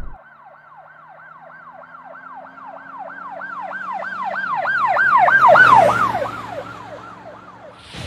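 Emergency vehicle siren in a fast repeating wail, about three sweeps a second, each falling from high to low pitch, with a faint engine hum underneath. It grows louder to a peak about five and a half seconds in, then fades as it passes, and cuts off suddenly near the end.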